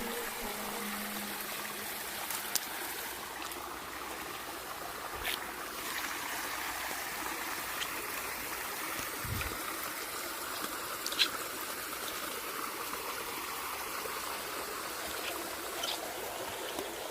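Water running steadily, like a stream or trickle. A few sharp clicks and one low thud come through over it.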